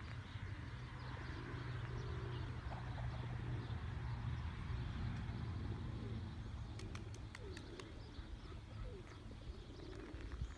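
Flock of domestic pigeons cooing, soft repeated low coos over a steady low rumble, with a quick run of sharp clicks about seven seconds in.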